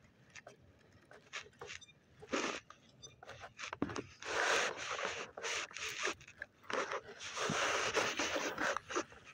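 Rustling and scraping handling noise close to the microphone, from a hand gripping the phone and a fishing rod, in irregular bursts; the two longest last over a second each, about four and seven seconds in.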